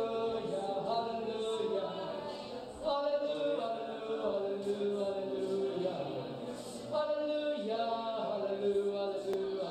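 Voices singing slow, chant-like worship phrases in long held notes, each phrase starting afresh about every four seconds.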